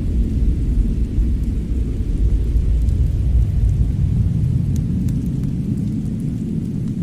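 Fireplace ambience: a steady low rumble with a few faint, scattered crackles.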